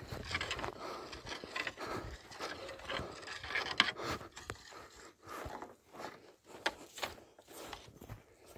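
Footsteps crunching and scraping irregularly on dry, stony ground, with some rubbing and rustling.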